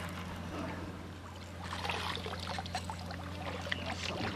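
Light water splashing and trickling, with a scatter of small splashes and clicks in the second half, over a steady low hum.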